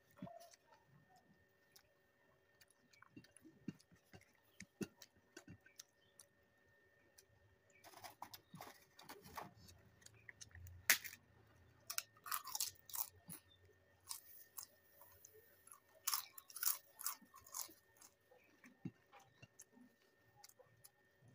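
A person chewing close to the microphone, with clusters of loud, sharp crunches of crisp food about eight, eleven and sixteen seconds in, between quieter chewing and mouth clicks.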